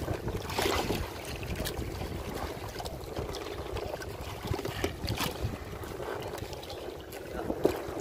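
Choppy sea waves lapping and splashing against a boat's hull, with wind buffeting the microphone and a few louder slaps, the loudest about half a second in.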